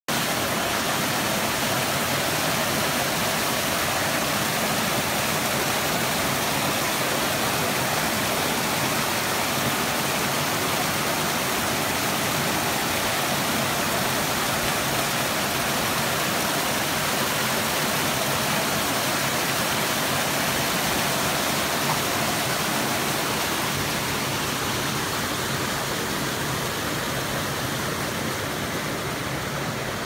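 Small hot-spring waterfalls splashing over rocks into a pool: a steady rushing of water, a little quieter near the end.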